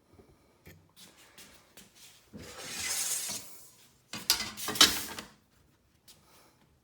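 A straight edge being slid and set against a miter saw's fence: a scraping slide lasting about a second, then a clatter of metal clicks and knocks about four seconds in.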